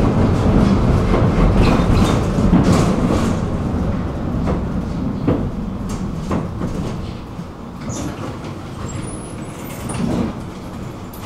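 Tram running on rails, its low rumble dying away over the first seven seconds or so as it slows, with scattered clicks and knocks.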